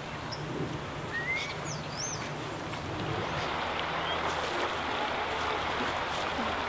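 Steady rushing of river water, a little louder after about three seconds, with a few short, high bird chirps in the first two seconds.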